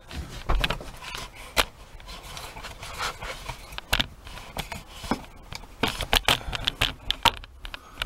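Handling noise of a camera being pushed into the opened tailgate: rubbing and scraping against the panel, with irregular clicks and knocks.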